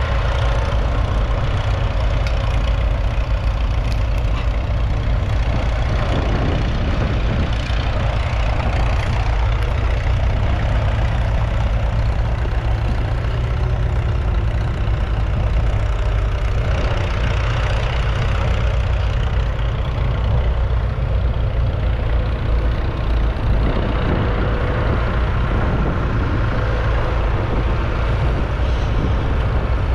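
Leyland 802 tractor's 3.8-litre four-cylinder diesel engine running steadily while the tractor pulls a two-furrow reversible plough.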